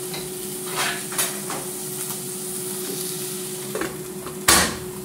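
Liver and onions sizzling in an aluminium pot, with a few light knocks against the pot. About four and a half seconds in, the aluminium lid is set on the pot with a sharp clang.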